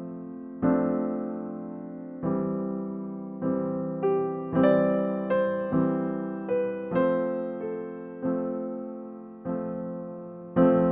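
Background music: a slow, gentle piano melody of single notes and chords, struck roughly once a second, each left to fade.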